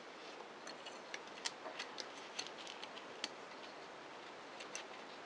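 Faint, irregular light clicks and ticks from small parts of a Daiwa 175 salmon reel being handled as a spring is fitted over a post inside it, about a dozen scattered through.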